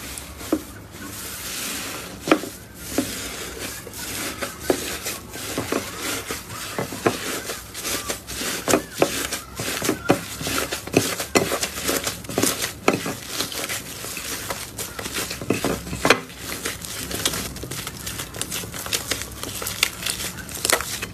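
Hands squeezing and kneading a thick fluffy slime: sticky squishing with many irregular crackling pops and clicks.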